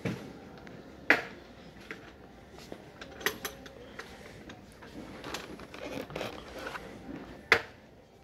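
A few sharp knocks and clacks of objects being handled, the loudest about a second in and near the end, with softer rustling and clatter between.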